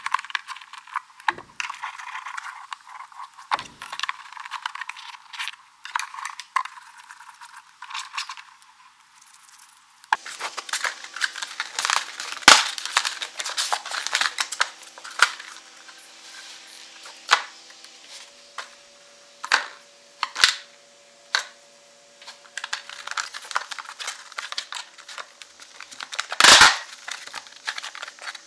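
Hand tools working the wood strips of a cedar strip canoe hull: scraping and shaving strokes, with many small clicks and taps as tools are handled on the wood, and one loud knock near the end.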